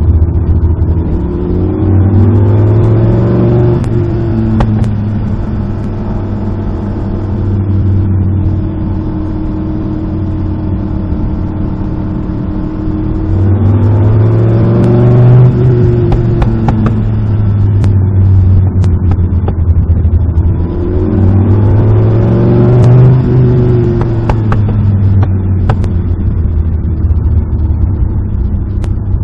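Alfa Romeo Busso 3.0-litre 12-valve V6 engine of a Lister Bell Stratos replica, driven on the road: the engine note rises as it accelerates and drops back, three times.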